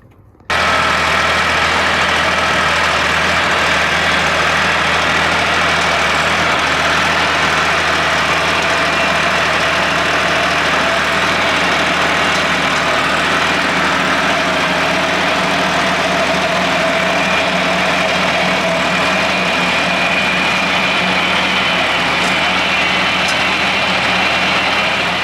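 Tractor engine running loud and steady while driving a small round baler. It cuts in abruptly about half a second in and holds an even pitch throughout.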